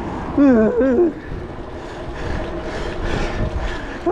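A man's wordless, drawn-out groan about half a second in, then a steady low rumble of wind and riding noise on the microphone while cycling uphill.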